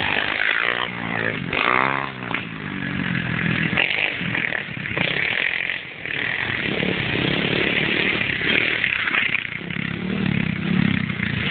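Small-displacement 125cc CRZ pit bike engine revving as the bike rides past on a dirt track, its pitch rising and falling with the throttle, then running on.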